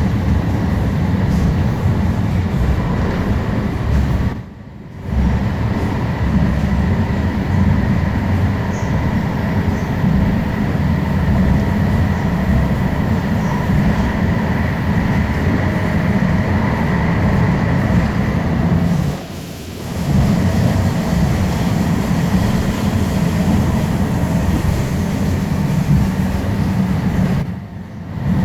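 Alstom Citadis Spirit light-rail train running between stations, heard from inside the car: a steady low rumble with a faint motor whine. The sound dips briefly three times.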